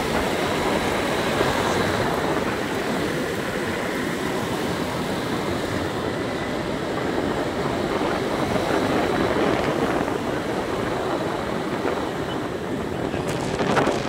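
Steady rush of wind and road noise from a moving motor scooter, with a faint steady high whine. There is a brief louder gust near the end.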